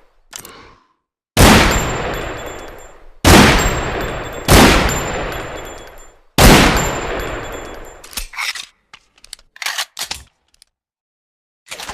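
Desert Eagle pistol fired four times, each shot sharp and loud with a long echoing decay. After the last shot come several short mechanical clicks and clacks.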